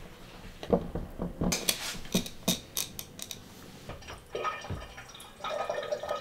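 A silicone spatula stirring flour and water in a glass jar, knocking and clinking against the glass several times in the first few seconds, then a stretch of wetter scraping and rubbing near the end.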